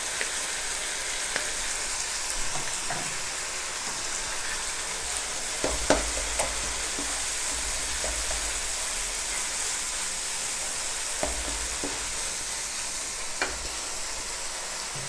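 Masala of onion, garlic and tomato paste frying in hot oil in a pan: a steady sizzle, with a spoon stirring and knocking against the pan now and then, the sharpest knock about six seconds in.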